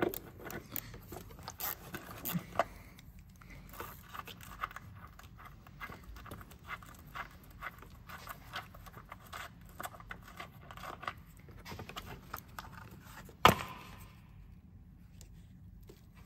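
Small metallic clicks and scrapes as a 10mm nut is undone with a socket and a plastic underbody guard is worked off its clip, with one sharp knock about 13 seconds in.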